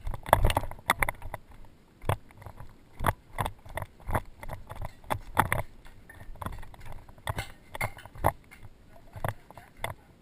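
Footsteps of a person walking, an irregular series of sharp steps about one a second.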